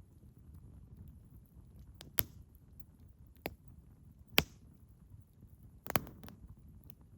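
Wood campfire burning with a low steady rumble, broken by sharp crackling pops from the firewood: about five separate pops, the loudest a little past the middle and two close together near the end.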